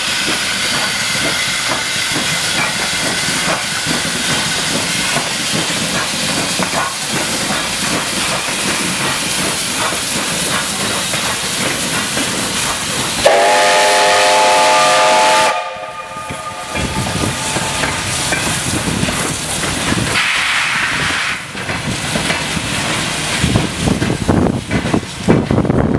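Soviet L-class 2-10-0 steam locomotive L-5289 hissing steam as it runs past. About halfway through it gives one loud steam-whistle blast of about two seconds. The blast is followed by the rumble and clatter of the train's wheels rolling over the rails.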